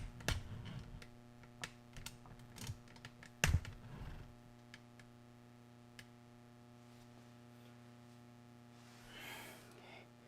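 Clicks and knocks of hands and tools working on washing-machine parts during disassembly, busiest in the first four seconds with one louder knock about three and a half seconds in; then a steady low hum, and a brief rustle near the end.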